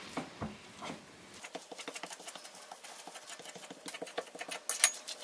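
Irregular light clicking and tapping of kitchen utensils against a bowl, a little louder and denser near the end.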